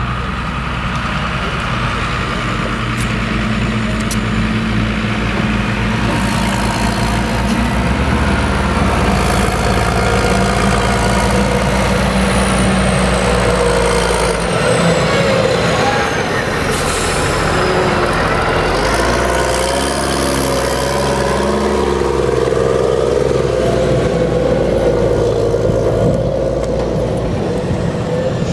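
Heavy diesel machinery working a maize field: a Case IH tractor's engine pulling a silage trailer drives close past about midway, with a forage harvester running steadily behind it.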